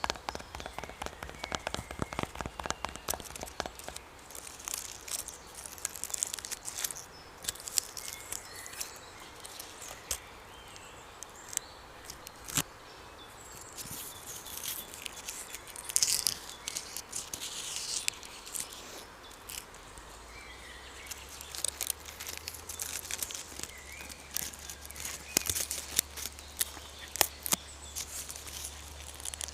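Irregular crackles and clicks close to the microphone, with faint bird chirps in the background.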